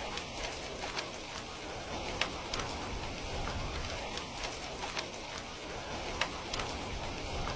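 Heavy rain falling steadily, an even wash of noise with frequent sharp drops ticking irregularly.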